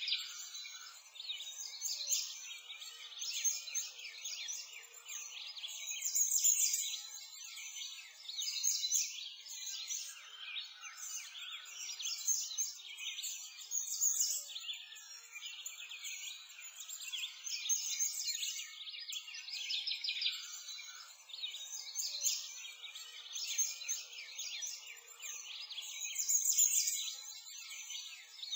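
Dense birdsong: many small birds chirping and twittering over one another, high-pitched and continuous.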